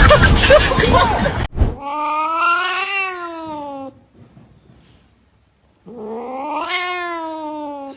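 A cat yowling twice: two long, drawn-out calls, each about two seconds, rising and then falling in pitch. A dense jumble of noisy sound cuts off abruptly just before the first call.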